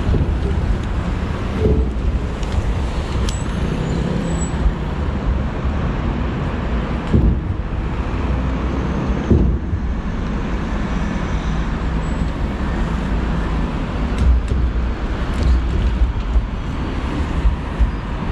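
Steady road traffic from cars and a bus crossing a road bridge, a continuous rumble with low engine tones.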